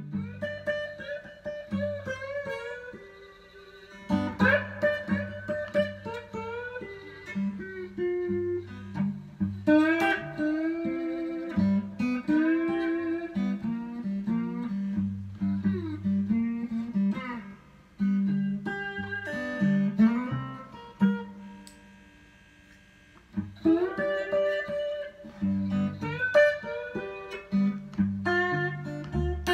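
Solo slide blues on a Telecaster-style solid-body electric guitar, a brass slide gliding into and between notes over repeated low bass notes. Twice, near four seconds in and again around 21 to 23 seconds, the playing stops and a chord rings out and fades.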